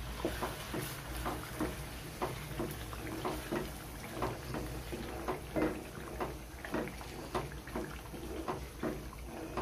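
Wooden spatula stirring chicken pieces through thick, bubbling gravy in a non-stick karahi: wet squelching and scraping strokes about twice a second, over a low steady hum.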